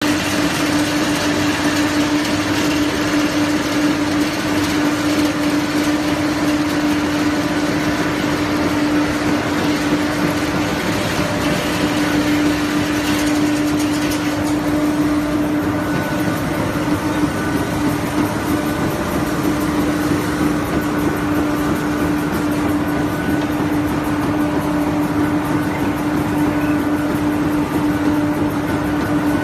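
Waste-tyre crushing and grinding line running: steady, loud machinery noise with a constant hum under a dense rattle. The higher hiss eases a little about halfway through.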